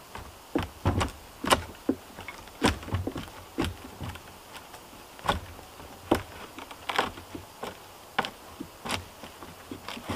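A wooden pole knocking against the logs of a log cabin wall: about fifteen sharp, irregular knocks over the stretch, some with a dull thump under them.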